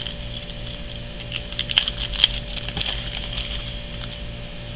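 Irregular light clicks and ticks of coins and their packaging being handled, busiest in the middle, over a steady low electrical hum.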